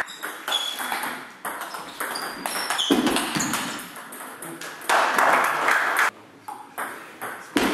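Table tennis rally: the plastic ball struck by rubber-faced rackets and bouncing on the table in sharp, ringing ticks. A louder rush of noise comes about five seconds in.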